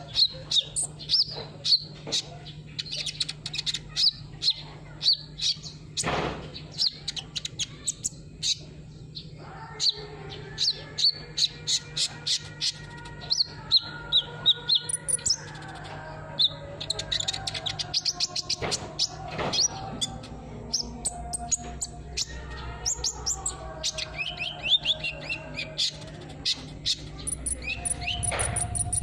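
Sunbird (kolibri) song: rapid runs of short, high-pitched chirps and twittering trills, several a second, over a steady low hum.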